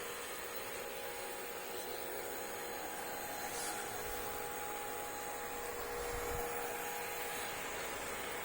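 Small Cartesian CNC machine running during a 3D-printing or plotting job: a steady fan hiss with a faint, even motor hum.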